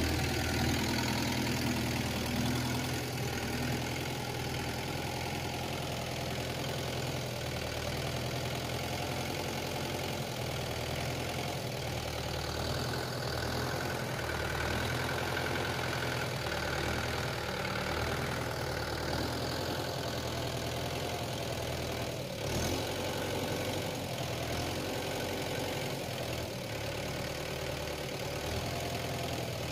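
Mahindra Yuvo tractor's diesel engine running steadily at low speed while its hydraulics tip the trailer and dump its load of soil.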